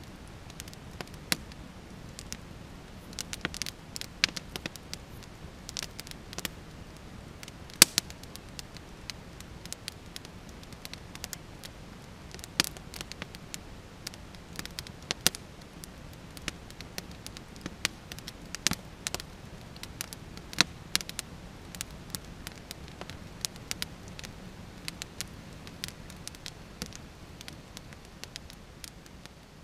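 Wood campfire crackling, with irregular sharp pops over a faint steady hiss; the loudest pop comes about eight seconds in.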